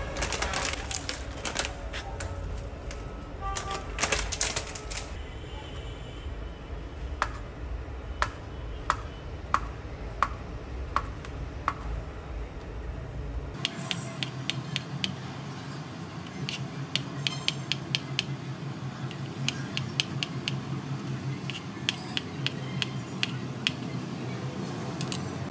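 Serrated knife slicing hot dog sausages on a plastic cutting board, each cut ending in a sharp tap of the blade on the board, in a run of repeated taps that comes faster in the second half.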